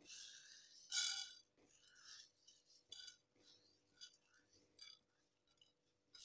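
Dry sorghum grains poured from a plate into a nonstick frying pan, pattering and clinking onto the pan in two quick spills about a second apart. A few stray grains then tick down and die away.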